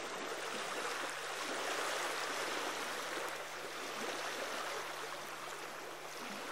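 Small lake waves lapping and washing over a pebble shore, a steady watery wash that swells slightly and eases.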